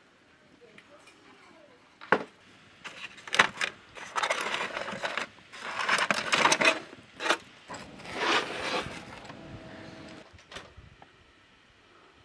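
Aluminium foil crinkling as it is peeled off a metal pan of baked pizza, in several loud rustling bursts over about six seconds, after a single sharp knock about two seconds in.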